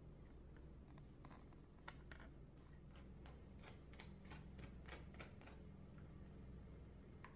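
Faint clicks and taps of a utensil on a plastic container as cream cheese frosting is spooned onto cinnamon rolls in a pan. The clicks come in an irregular run, a few a second, from about a second in to past the middle, with one more near the end, over a low steady hum.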